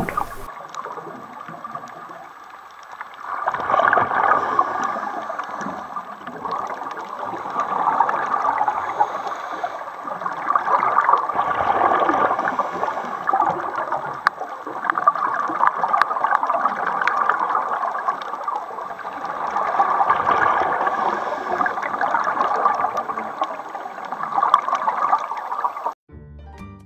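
Underwater sound recorded on a scuba dive: a diver's regulator breathing and the gurgling rush of exhaled bubbles, swelling and fading every few seconds. It cuts off abruptly near the end.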